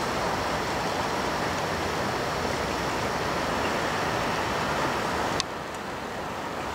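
Steady hiss of light rain falling. About five seconds in the sound drops a little and its higher hiss thins out.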